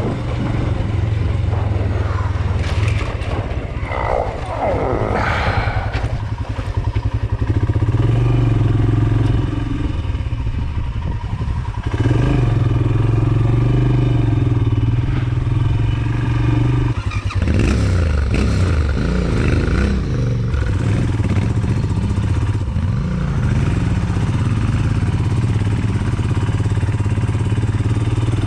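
Royal Enfield Himalayan's single-cylinder engine running as the motorcycle is ridden along a sandy dirt trail, heard from on the bike. The engine note shifts several times with throttle and gear changes and wavers for a few seconds in the middle.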